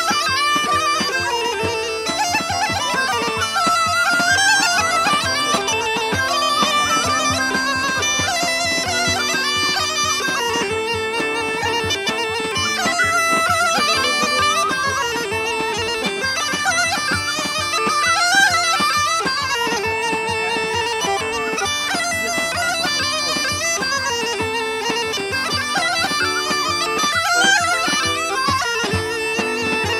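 Live Bulgarian-style folk tune: a small wooden end-blown pipe plays a fast, heavily ornamented melody over accordion accompaniment, with no pause.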